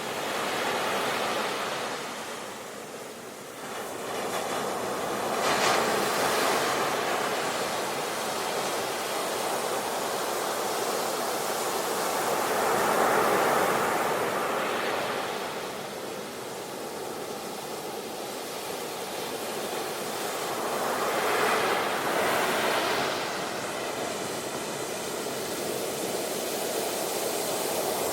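Ocean waves breaking on a beach: a continuous wash of surf that swells louder every five to eight seconds as each wave comes in, then eases off.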